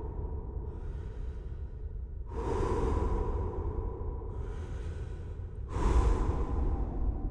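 Slow, heavy breathing, loud breaths about two and a half and six seconds in alternating with quieter ones between, in a steady cycle of about three seconds.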